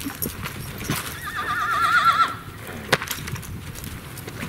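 A horse whinnies once, a wavering, trembling neigh lasting about a second, over hoofbeats of a saddled horse loping on the dirt of a round pen. A single sharp crack comes about three seconds in.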